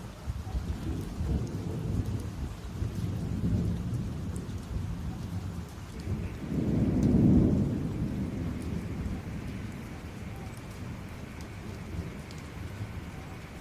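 Thunderstorm: thunder rumbles low throughout, swelling to a louder roll about halfway through and then fading, over steady rain.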